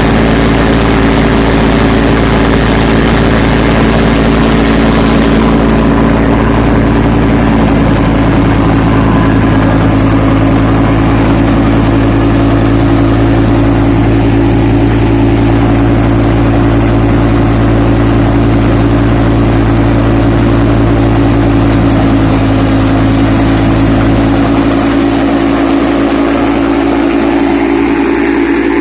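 Combine harvester's diesel engine running steadily at constant speed, a loud, even drone.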